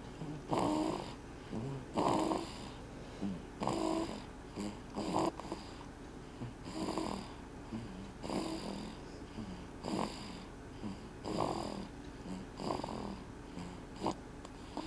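A sleeping 12-week-old snoring steadily, with a short snore about every second and a half, some with a slight pitched note in them.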